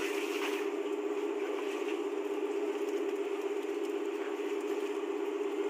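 Engine of a purse seine fishing boat running, a steady drone.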